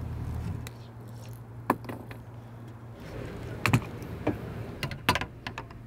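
Gear being rummaged through: a handful of separate sharp clicks and knocks spread over several seconds, with a low steady hum that stops within the first second.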